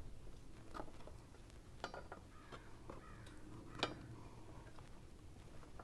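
Faint, scattered clicks and light knocks of metal bracket hardware being handled and fitted, the sharpest about four seconds in.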